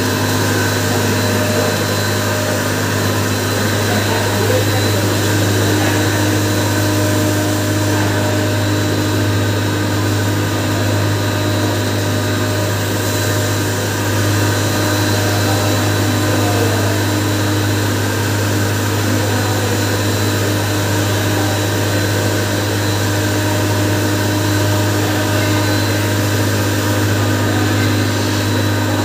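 Sugar pulverizer running steadily while grinding granulated sugar into fine powder: a constant low motor hum under an even whirring rush of the mill and its air stream. Its tone shifts slightly about four seconds in.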